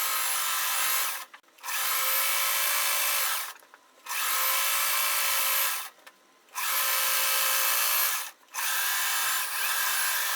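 Electric sewing machine stitching a seam in short runs of about two seconds, stopping briefly between runs, five times.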